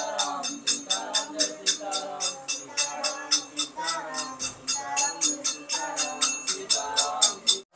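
Devotional bhajan singing with a jingling metal percussion struck in a fast, steady beat, about five or six strokes a second.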